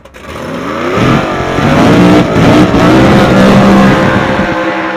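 Chevrolet pickup truck's engine at full throttle on a drag-strip launch, swelling up and climbing in pitch as the truck pulls away with tyres spinning and smoking, then dropping away near the end.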